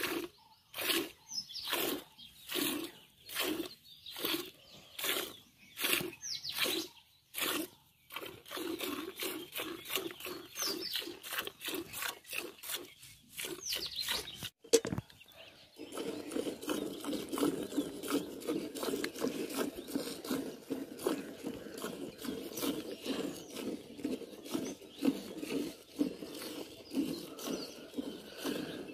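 Hand milking a cow into a steel pail: squirts of milk strike the pail in a steady rhythm, about two a second. After a short break about halfway through, the squirts come quicker and denser, over a duller hiss as they land in the milk already gathered in the pail.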